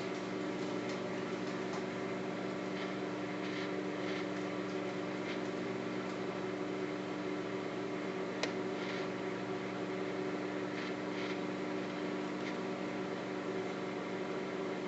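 Microwave oven running with a steady hum while marshmallows cook inside, with a few faint crackles and one sharp click about eight and a half seconds in.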